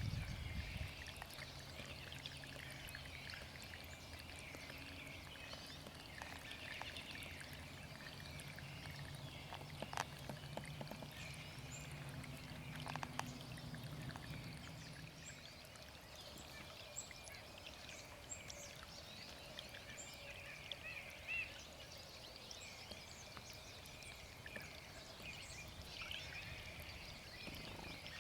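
Small spring runoff stream trickling and bubbling faintly, a dense patter of tiny watery blips and pops, with a low hum beneath it that fades out about halfway through.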